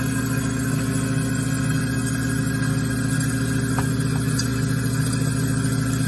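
Garbage disposal motor running with a steady hum while it breaks up foaming cleaner tablets, with a thin stream of hot tap water running into the drain.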